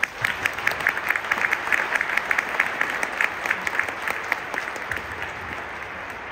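Stadium crowd applauding, with sharp claps from people close by standing out over the wider applause, which thins out and softens over the last couple of seconds.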